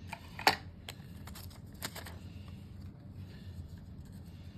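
Packaging and parts being handled by hand: a few light clicks and taps, the sharpest about half a second in and another near two seconds, then quieter handling over a faint low hum.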